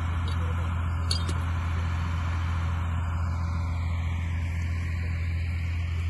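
A motor vehicle's engine running steadily, a constant low hum with no change in speed, and one short click about a second in.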